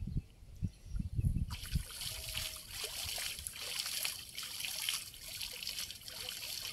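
Shallow floodwater splashing and trickling as a man wades and hauls in a cast net, throwing water toward it with his hand. A few low dull thumps in the first second or so, then steady splashing from about a second and a half in.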